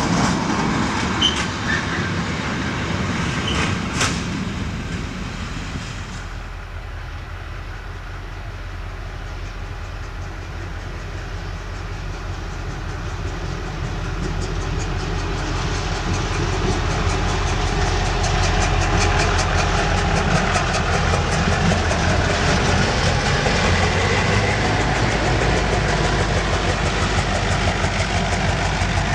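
Diesel-hauled freight train passing, its engine drone steady underneath. It grows louder through the middle, then wagons rattle over the rail joints in a fast, even clickety-clack.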